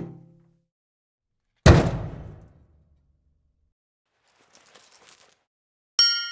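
Separate metal sound effects one after another: a loud, heavy metal impact about two seconds in that dies away over about a second, a faint jingling rattle of small metal pieces a little before the end, then a sharp metal strike near the end that rings on with several clear tones.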